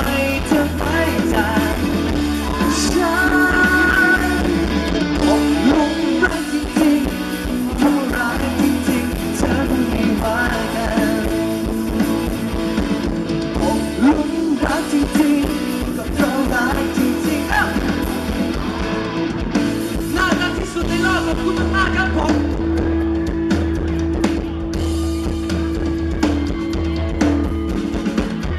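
Live rock band performance: a male singer singing into a microphone over a drum kit and amplified band, heard through the concert sound system.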